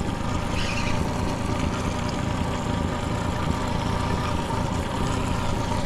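Boat's outboard motor running steadily at low trolling speed, with an even, unchanging drone.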